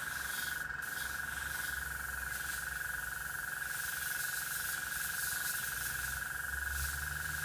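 Airbrush rig running steadily while spraying paint: a constant high buzz from the small compressor with a hiss of air above it.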